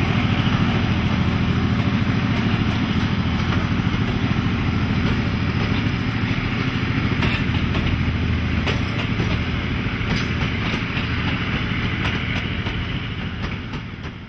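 Y class diesel-electric locomotive's GM two-stroke diesel engine running under load as the train of passenger carriages passes, with wheels rumbling on the rails and a few clicks over rail joints. The sound fades slightly toward the end.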